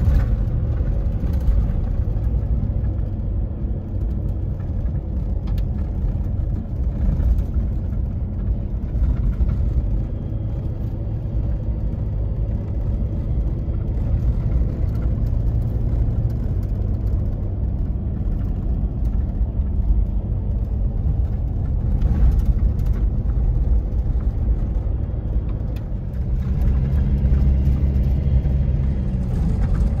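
Four-wheel drive on the move: steady engine and road rumble with a few brief knocks. The engine note grows louder near the end.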